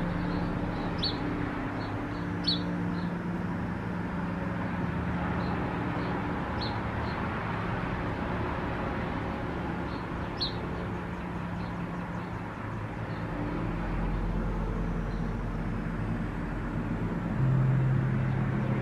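Steady background rumble with a low hum that shifts in pitch and swells near the end, like passing traffic. Over it come a few short, single high chirps, spaced seconds apart.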